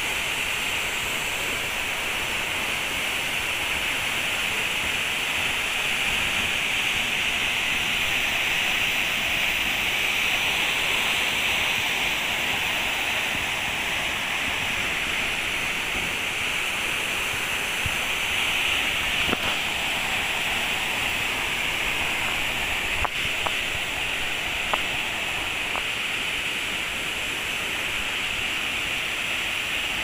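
A tall waterfall crashing down a rock face into a pool: a steady, unbroken rush of falling water. A few faint clicks come through in the second half.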